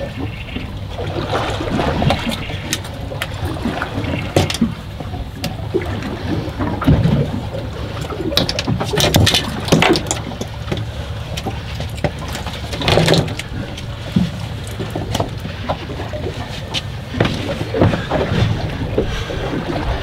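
Sounds of a small fishing boat on the water: a steady low rumble of water and wind around the hull, with irregular knocks and slaps against the boat.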